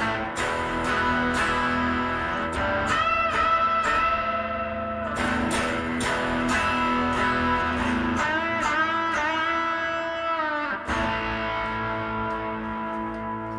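1958 Gibson Les Paul Special electric guitar on its bridge P-90 pickup, played through a Line 6 Helix modelling a Roland JC-120 with a light Tube Screamer overdrive in front. A lightly overdriven lead line with string bends and vibrato, ending about three-quarters of the way in on a chord left to ring and fade.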